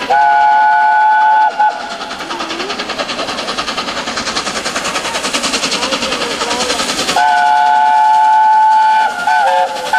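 LNER Peppercorn A1 steam locomotive Tornado sounding its whistle, a long blast of several steady tones at once. Then comes several seconds of fast, regular rail clatter as the train passes, and a second long whistle blast followed by a couple of short toots near the end.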